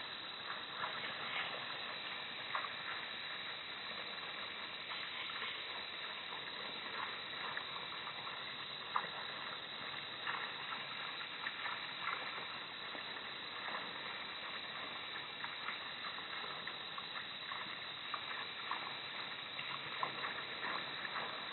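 Steady outdoor night background hiss with faint level tones, sprinkled with small soft ticks, heard through a low-quality camera microphone.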